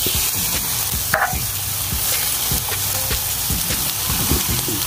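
Thin beef bottom round steaks sizzling steadily on a hot indoor grill plate as they are turned over with tongs. There is one short knock about a second in.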